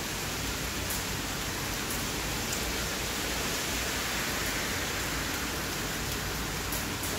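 Steady rainfall: an even hiss of rain with a few sharp ticks of drops scattered through it.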